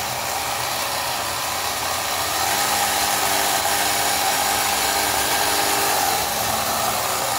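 Radio-control model ship's drive motor and propeller running gear whirring steadily, not exactly quiet, almost like a small gas engine. From about two and a half seconds in it runs a little louder with a steadier pitched hum for a few seconds, then eases off slightly.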